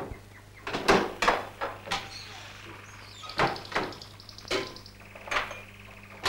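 Kitchen clatter of a wall cupboard door and a metal saucepan being handled and set down on the stove: a string of separate sharp knocks and clunks over a steady low hum.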